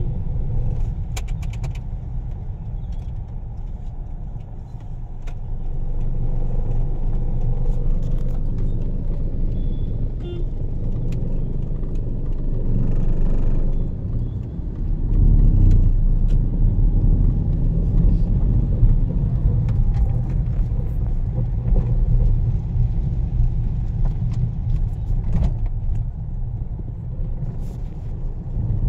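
Steady low rumble of a car driving on a wet road in the rain, heard from inside the cabin, with a few faint clicks. The rumble grows louder about halfway through.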